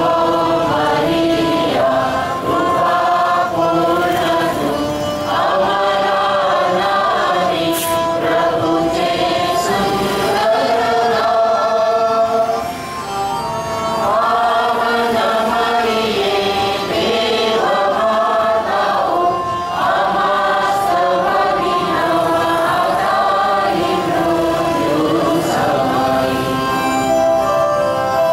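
A group singing a Christian hymn with instrumental accompaniment.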